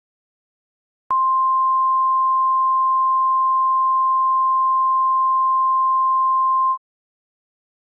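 Emergency alert attention tone: a single steady pure tone near 1 kHz, the 1050 Hz Weather Radio warning alarm tone. It starts abruptly about a second in, holds for almost six seconds, and cuts off sharply, signalling that a warning message follows.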